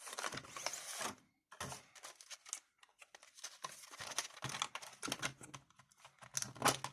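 Packaging rustling and crinkling, with many small irregular clicks and knocks, as the knives are taken out of their box.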